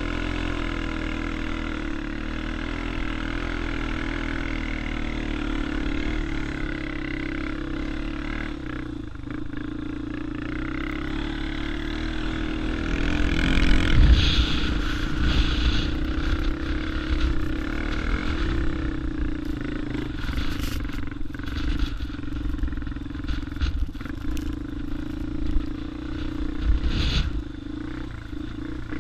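Quad bike engine running steadily under throttle while riding over sand, with low rumble from the microphone. It gets louder about halfway through, and in the second half short knocks and rattles come through as the ground gets rougher.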